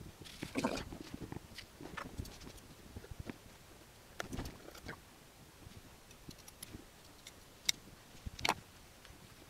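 Quiet handling noises of fabric being folded and pressed down over glued cardboard shapes, with scissors cutting the fabric. Two sharp clicks near the end.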